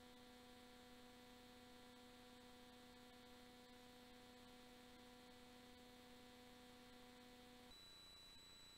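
Near silence with a faint steady electrical hum; near the end the hum gives way to a thin, high-pitched whine.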